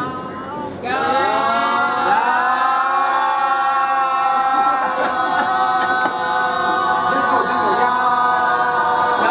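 A group of people shouting a long, drawn-out "yaaam" together in unison, the opening of a Cantonese yam seng toast. The held cry starts about a second in and carries on steadily.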